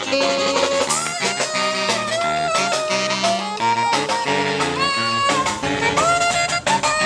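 Background music with a steady beat, a lead melody that slides up into its held notes, and a bass line.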